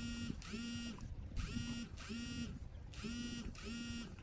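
A repeating electronic tone: pairs of short, buzzy beeps that come round about every second and a half, evenly spaced.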